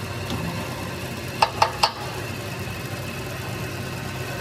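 Hydraulic press's power unit running with a steady hum, and three sharp metal clinks in quick succession about a second and a half in as the steel parts are handled on the press bed.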